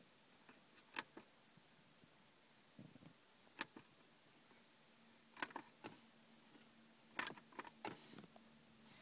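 Short plastic clicks of the push buttons on a BMW E36 dashboard multi-information display being pressed, a few seconds apart, some in quick pairs and small clusters. A faint steady hum comes in about halfway.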